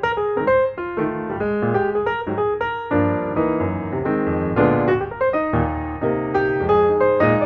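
Background piano music: a run of quick notes over lower chords, several notes a second.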